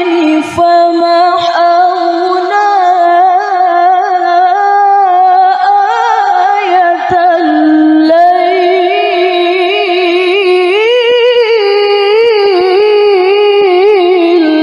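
A woman's voice reciting the Quran in the melodic tilawah style through a microphone, holding long high melismatic phrases with rippling ornaments. The pitch steps up higher about eleven seconds in.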